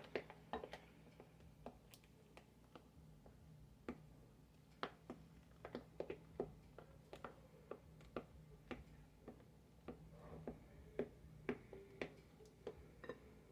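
Faint, irregular clicks and taps of a mixing utensil against a bowl as Cool Whip is folded into a thick fruit and Jell-O mixture.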